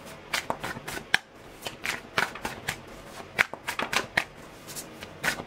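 A tarot deck being shuffled by hand: a quick, irregular run of card snaps and taps.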